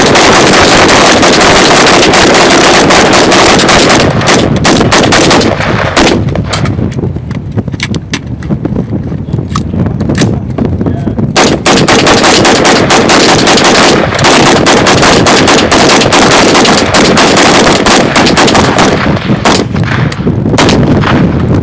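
Rapid, sustained fire from a 5.56 AR-15 rifle, the shots very loud and coming almost without a break for long stretches, with a spell of more separate shots around the middle.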